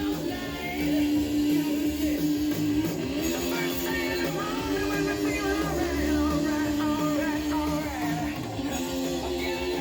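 Rock music with electric guitar: held, gliding guitar notes over a steady rhythm section.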